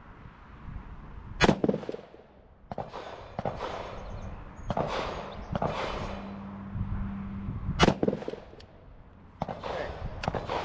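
AR-15 rifle firing two shots about six seconds apart, with several fainter bangs between and after them.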